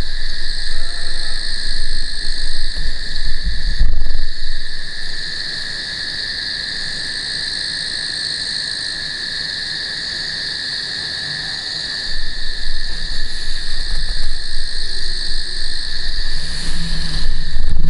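Night chorus of frogs: a steady, high-pitched trilling throughout. A low rumble comes and goes under it during the first few seconds and again from about twelve seconds in.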